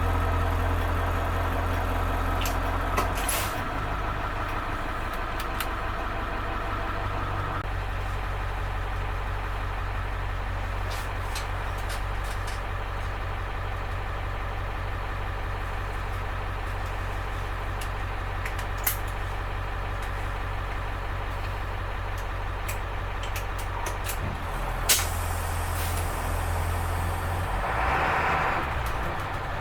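School bus engine running steadily, its low hum shifting a little a few times, with a few sharp clicks and a short hiss near the end.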